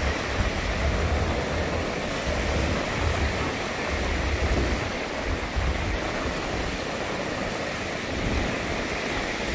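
Ocean surf: small waves breaking and washing up a sandy beach, a steady hiss with a gusty low rumble underneath.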